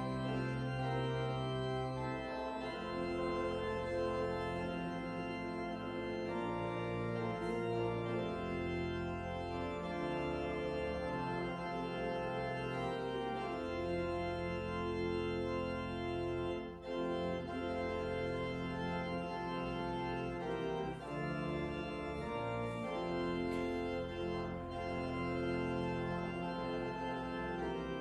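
Church organ playing slow, sustained chords, the bass notes changing every second or two.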